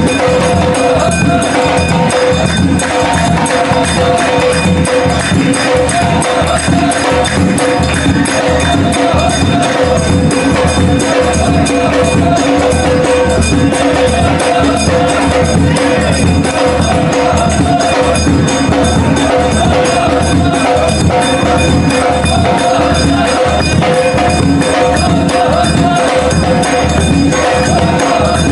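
Loud music with steady, fast drumbeats, jingling hand percussion and a held steady tone above.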